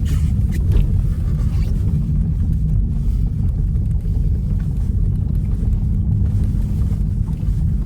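Car driving, heard from inside the cabin: a steady low rumble of engine and road noise with a constant hum.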